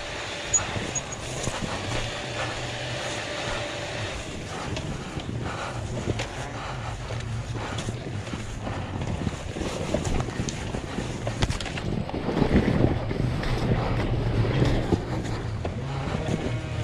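Enduro motorcycle engine running with a steady low note on a steep downhill dirt trail, mixed with wind buffeting the microphone and the knocks and rattles of the bike over rough ground; it grows a little louder about twelve seconds in.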